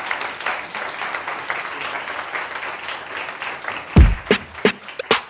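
Audience applauding steadily; about four seconds in it gives way to loud electronic outro music with a few sharp scratch-like hits over deep bass.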